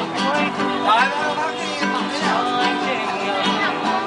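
Nylon-string classical guitar strummed to accompany a man singing a Vietnamese song.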